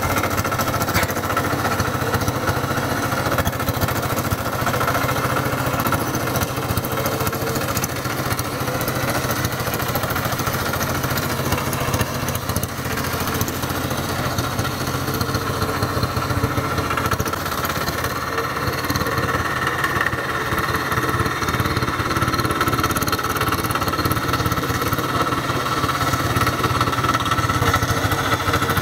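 Quick Kronos walk-behind hand tractor's single-cylinder diesel engine running steadily under load while its rotary tiller chops through dry soil, with a fast, even beat and a steady whine.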